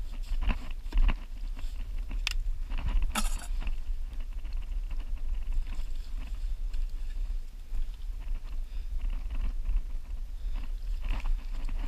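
Wind buffeting the microphone in a steady low rumble, over scattered scrapes and wet squelches as a hand digs out a hole in wet tidal sand; two sharper scrapes come about two and three seconds in.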